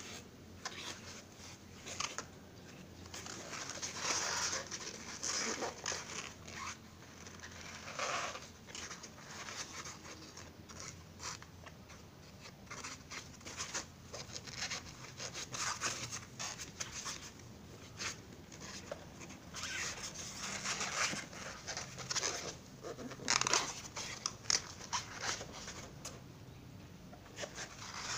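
Foam sponge rustling and scraping under the fingers as it is stitched onto an air-filter frame, with thread drawn through the foam in short, irregular rasping scratches.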